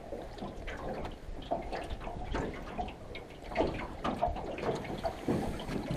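Water splashing and dripping, with scattered small knocks and clicks, as a caught pike is handled in the boat.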